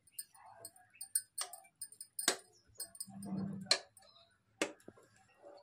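A metal spoon stirring cooked rice in an aluminium pressure cooker: several sharp clinks of the spoon against the pot, with a duller scrape through the rice about three seconds in.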